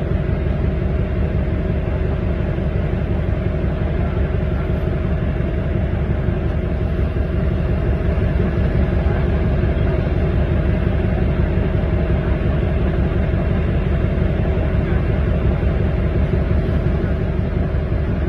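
Steady low rumble of a fire engine's diesel engine running, with a constant drone and no breaks.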